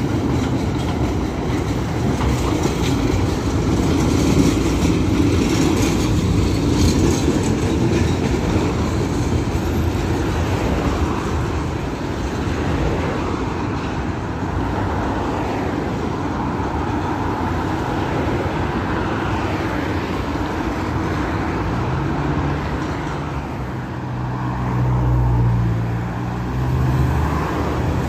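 A tram running on its rails, a steady rumbling rail noise with some wheel clatter. A low hum swells about three-quarters of the way through and peaks near the end.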